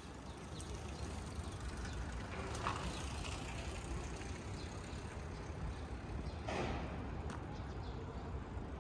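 Outdoor city ambience by a river: a steady, fluctuating low rumble of distant traffic and air, with a couple of brief louder sounds about three and six and a half seconds in.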